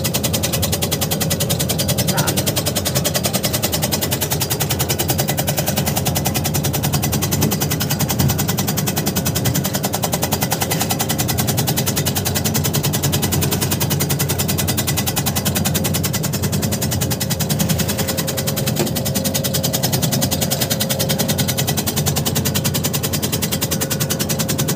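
Tobacco shredding machine running at high speed, its blade chopping in a rapid, even clatter of many strokes a second.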